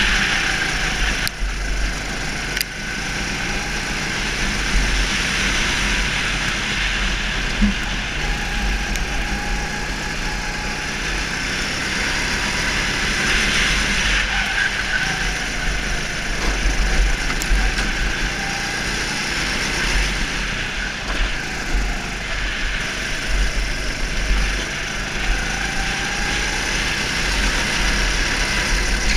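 Go-kart engine running on track, its pitch rising and falling, with a steady low wind rumble on the microphone.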